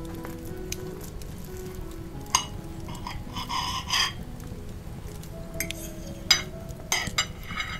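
Knife and fork cutting through a cheese-topped casserole, clinking and scraping against the plate: a sharp clink about two and a half seconds in, a short scrape around three and a half seconds, and more clinks near the end. Soft background music plays underneath.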